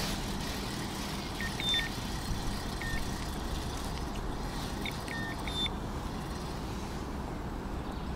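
Steady wind rumble on the microphone, with a few faint short high chirps about one and a half, three and five seconds in.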